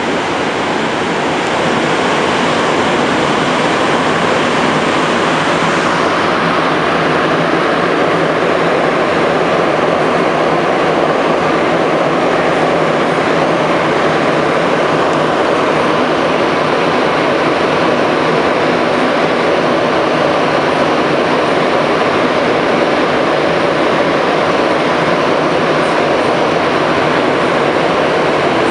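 Montreal metro MR-73 rubber-tyred train heard from inside the car, running at speed through a tunnel: a steady, loud rush of noise.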